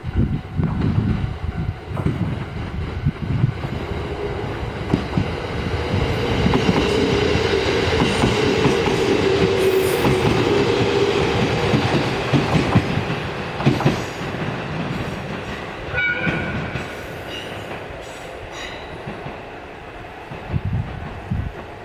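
Two-car JR East 701 series electric train pulling out of the station and passing close by: wheels clacking over rail joints and a steady running hum. It is loudest about halfway through, then fades as the train draws away.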